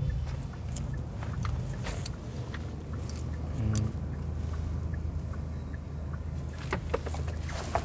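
Steady low engine and road rumble heard inside an SUV's cabin, with scattered light clicks and knocks.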